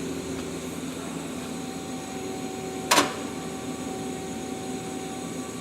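Parts catcher of a Mazak Quick Turn Nexus 200MS CNC turning center actuating with one short, sharp clunk about three seconds in, over the steady hum of the running machine.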